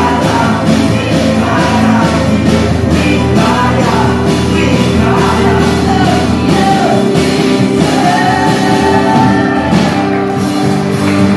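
Loud rock-style band music with singing over a steady beat.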